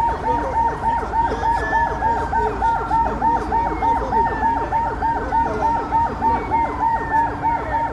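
Motorcade siren in a fast yelp, about four rising-and-falling sweeps a second, with a slower falling wail laid over it a few times.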